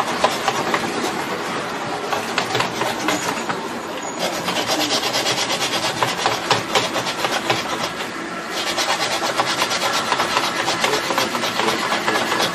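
Scratchy rubbing and scraping as the heater's burnt wire is worked by hand at its terminal. It is most rapid and rasping from about four to eight seconds in.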